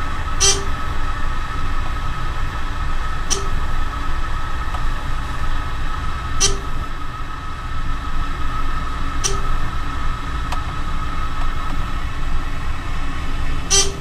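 Dover elevator car descending: a steady hum with a constant high whine from the car and its drive, and five short beeps about three seconds apart, one as the car passes each floor.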